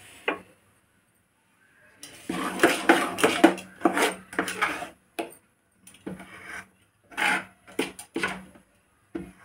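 Steel ladle stirring dosa batter in a steel pot, clinking and scraping against the metal. After a short silence it comes as a dense run of clatter about two seconds in, then a few separate knocks.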